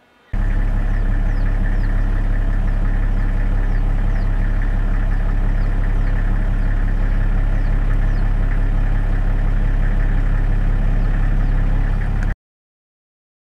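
Steady low mechanical hum like an idling engine, starting abruptly and cutting off suddenly near the end. Faint short high chirps repeat above it about once a second.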